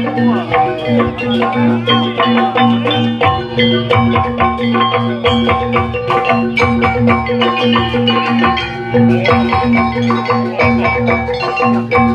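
Live gamelan accompaniment for a jaranan dance: struck metallophones playing fast interlocking notes over drums, in a steady repeating rhythm.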